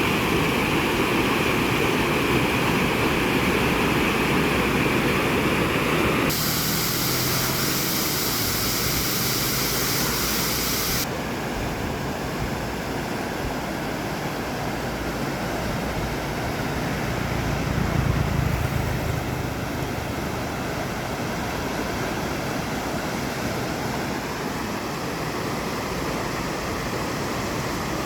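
Steady rushing of heavy, fast-flowing water, as from a swollen stream in flood. Its character changes abruptly about 6 seconds in and again about 11 seconds in. A louder low rumble swells briefly about 18 seconds in.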